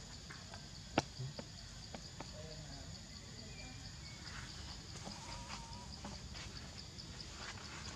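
Forest ambience: a steady, high, rapidly pulsing insect drone, with a sharp click about a second in and a few short, high animal calls scattered through.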